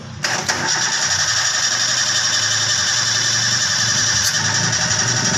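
Toyota Avanza engine being cranked by its starter motor. It starts suddenly a moment in and keeps going steadily without the engine catching: a no-start.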